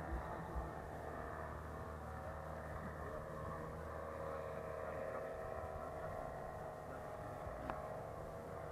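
A paramotor engine running steadily, a continuous even drone, with a single short click near the end.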